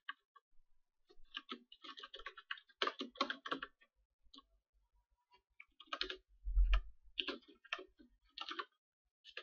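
Typing on a computer keyboard in quick bursts of keystrokes with short pauses between them, with one louder low thump about two-thirds of the way through.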